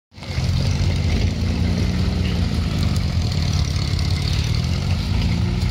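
Chevrolet K5 Blazer's 6.2-litre V8 diesel engine running steadily at low revs as the truck crawls over a rock slab.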